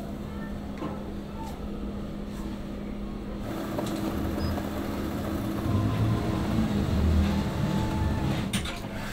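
Steady low machine hum of kitchen equipment, with a few light clicks early on. A deeper low rumble swells in about a third of the way through and is loudest near the end.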